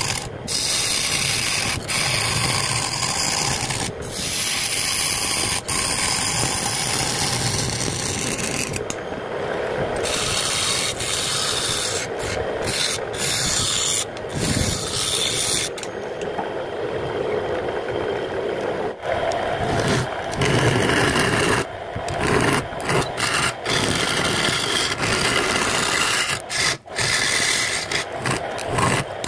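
Turning chisel cutting a jackfruit-wood blank spinning on a lathe: a steady rasping scrape, cut off briefly many times.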